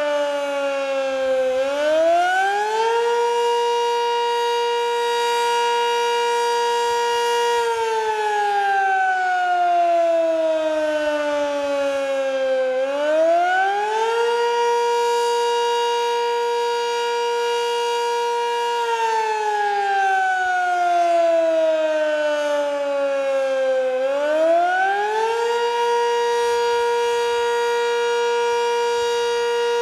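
Sentry 20V2T two-tone electromechanical warning siren sounding a wail on its monthly test. Its pitch climbs in about a second and a half, holds steady for about five seconds, then slides down over about five seconds. This happens three times, and a fourth slide down begins near the end.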